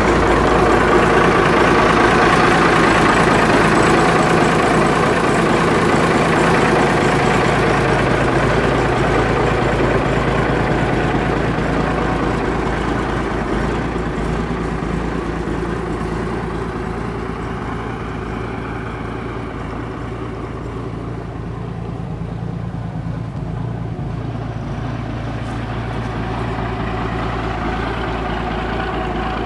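1986 Peterbilt 310 garbage truck's diesel engine idling steadily. It is loudest at first and eases off somewhat about halfway through.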